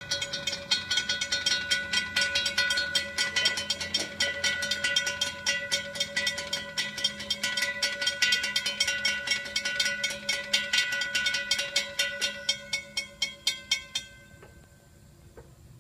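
Railroad crossing warning bell ringing in rapid, evenly spaced strikes, about four a second, while the crossing gates come down to warn of an approaching train. It stops abruptly about 14 seconds in, once the gates are down.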